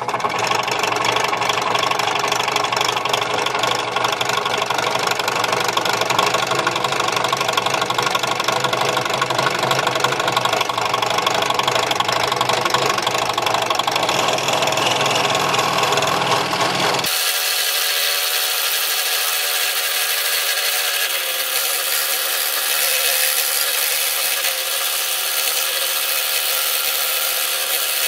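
Scroll saw running steadily, its reciprocating blade cutting through wood. About seventeen seconds in the sound changes abruptly, losing its low hum and going on as a thinner, higher-pitched hiss.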